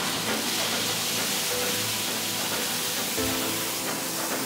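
Centrifuge spinning a load of freshly oiled screws to throw off the oil, a steady rushing hiss, with background music under it.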